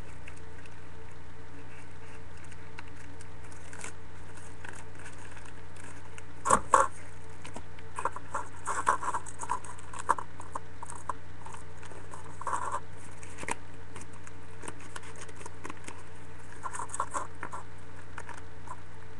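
Hands crinkling and pressing a sheet of white paper over a plastic cup, in scattered bursts of rustling. Two sharp knocks come about six and a half seconds in and are the loudest sounds. A steady low electrical hum runs underneath.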